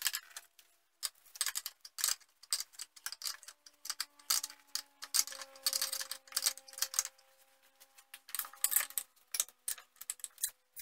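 A ratchet wrench clicking in quick runs of ticks with short pauses, backing off the 13 mm nuts that hold a Jeep Cherokee XJ's master cylinder to the brake booster.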